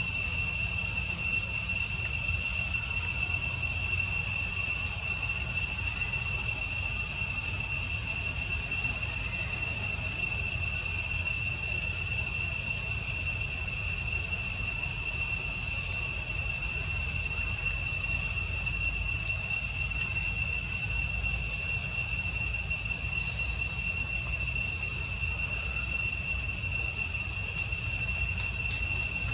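Steady, unbroken high-pitched insect chorus drone, holding one pitch throughout, with a low rumble underneath.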